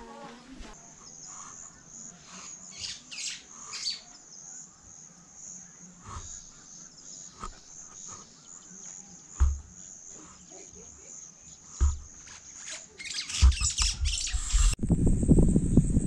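Outdoor dusk ambience: a steady high insect chirring with scattered bird chirps and calls. About two to three seconds before the end, loud gusty wind buffets the microphone with an irregular low rumble.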